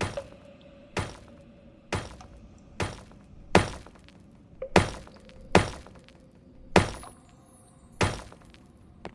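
The 'fart with reverb' meme sound effect played over and over, about once a second: each one a sharp hit with a short echoing tail.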